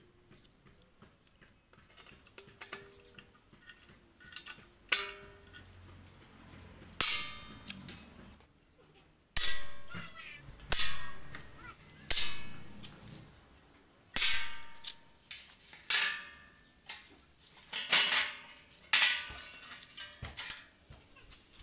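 A hammer striking a thin metal sheet clamped in a bench vise, bending it into a curved paddle blade. About ten ringing clangs come a second or two apart, the first few lighter and the rest louder from about nine seconds in.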